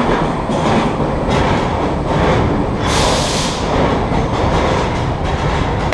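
Vintage R1/9 subway cars running, with the growl of their straight-cut gears over wheels clicking across rail joints, and a brief loud hiss about halfway through.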